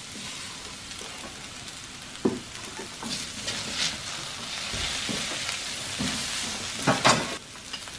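Rice noodles and broccoli sizzling in a hot oiled steel wok while a metal spatula stirs them, with a few knocks of the utensil against the wok, the loudest a couple of quick ones near the end.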